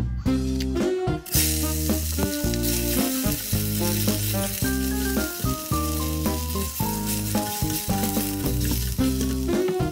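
Fish cakes sizzling in hot oil in a stainless steel pan as they are stirred; the sizzle starts about a second in. Background music with a melody and bass line plays throughout.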